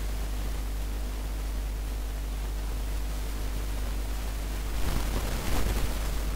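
Steady recording hiss with a low electrical hum, the noise floor of the microphone. About five seconds in, a louder rustling noise lasts for a little over a second.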